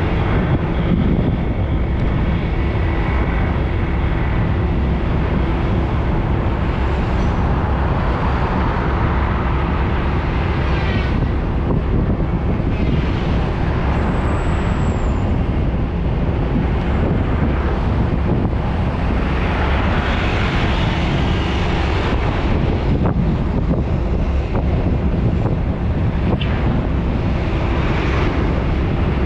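Steady roadside traffic: vehicles driving past on a busy road, with wind rumbling on the microphone.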